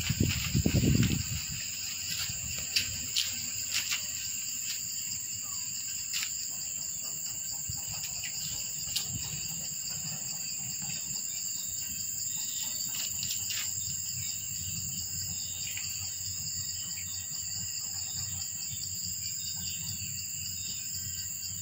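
Steady high-pitched insect chorus, several shrill bands holding level throughout. A brief low rumble in the first second is the loudest sound, and a few faint clicks follow.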